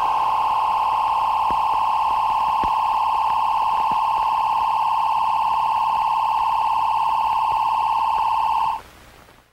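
A single steady, high electronic tone held without a break, cutting off suddenly near the end.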